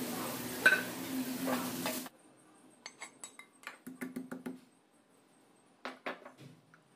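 A steady low hum with one sharp clink, then scattered light metallic clicks and ticks in two short clusters from an aluminium kadai holding a little hot oil.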